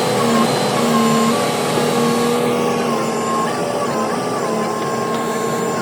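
Excavator-mounted Movax side-grip vibratory pile driver running while it drives steel sheet piles: a steady, loud mechanical hum whose pitch wavers slightly now and then, over the noise of the excavator and its hydraulics.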